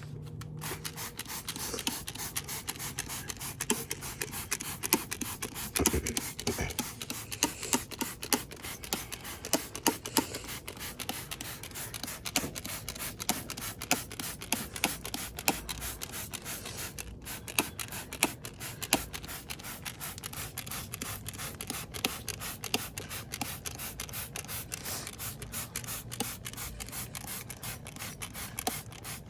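Scrubbing and scraping at old oil and dirt on a motorcycle coated with degreaser: a dense, continuous run of short scratchy strokes.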